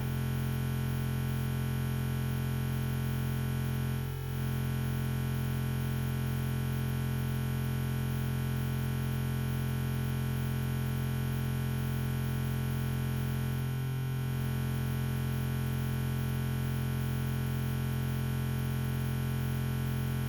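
Steady ambient synthesizer music holding one unchanging chord, with brief dips about four seconds in and again about fourteen seconds in.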